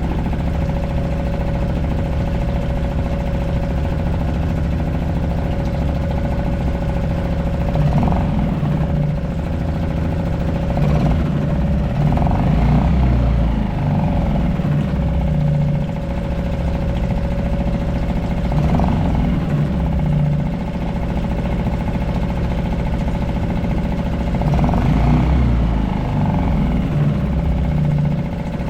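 Suzuki 2.5 HP DF single-cylinder four-stroke outboard running steadily in a test bucket, swelling briefly in level a few times.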